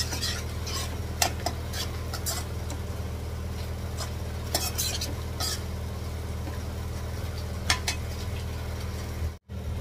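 A steel slotted spoon stirs and scrapes a thick masala and yogurt gravy in a kadhai, with a few sharp clinks of the spoon against the pan. Under it runs a steady low hum, and the sound drops out for a moment near the end.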